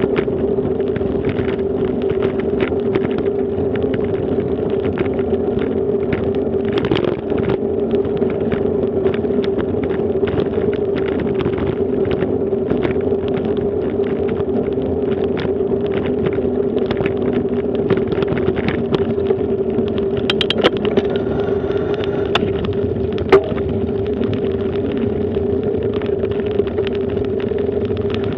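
Bicycle rolling over brick paving, recorded from a camera mounted on the bike: a steady drone with frequent small rattles and knocks as it goes over the bumps.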